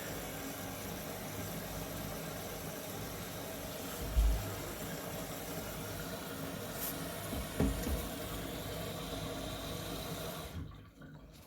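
Miele WCR 870 washing machine with water rushing through it and a faint steady hum, cutting off abruptly near the end. Two low thuds come about four and seven and a half seconds in.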